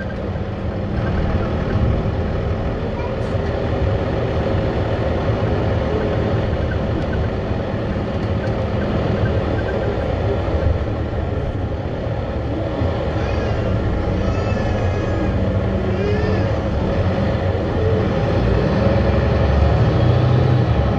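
City bus under way, heard from inside the passenger cabin: a steady engine and road rumble that grows a little louder near the end.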